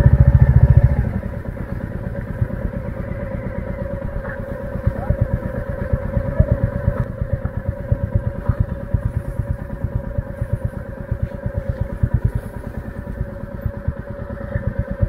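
Motorcycle engine at low revs, louder for the first second and then settling into a steady low thudding beat as the bike rolls slowly along a dirt trail.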